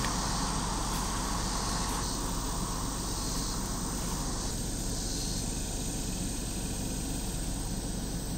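Steady hum of a stopped car heard from inside its cabin, with a steady high hiss over it.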